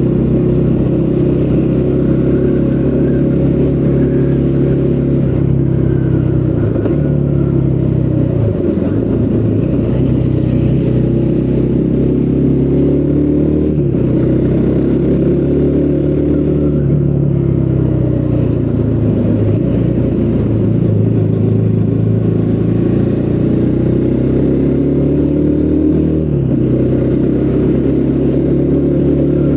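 Triumph Speed 400's single-cylinder engine through its stock exhaust while riding, the engine note climbing under throttle and dropping back several times, around 8, 14 and 26 seconds in.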